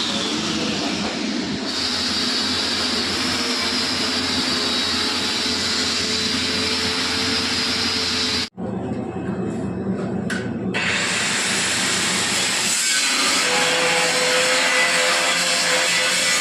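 Steady mechanical noise with a few faint held tones, cut off abruptly about halfway through and resuming at once, with its high end coming back a couple of seconds later.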